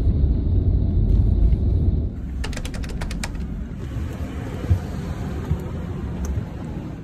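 Scania Astromega double-decker bus rumbling along the expressway, heard from the upper deck; the rumble cuts off about two seconds in. Then comes a quick run of about eight clicks, followed by a few footsteps, roughly one every second, going down the bus's stairs.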